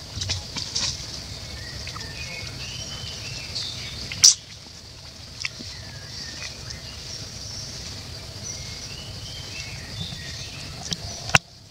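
Outdoor ambience: birds chirping over a steady high hiss and a low rumble. A few sharp clicks break in, the loudest about four seconds in and another near the end.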